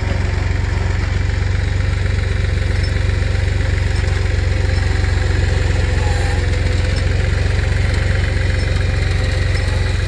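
Pickup truck engine idling steadily, a low even hum.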